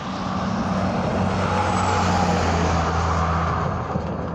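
A Freightliner semi truck's diesel engine and tyres passing by on the highway. The sound builds to its loudest about two seconds in, then fades as the engine note drops a little. No horn is sounded.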